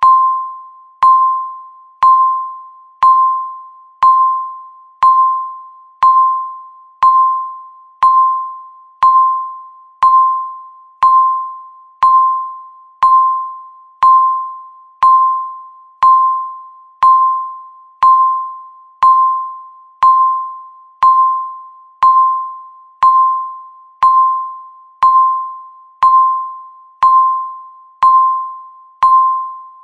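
Electronic countdown-timer beep: a single tone struck once every second, each one fading away before the next.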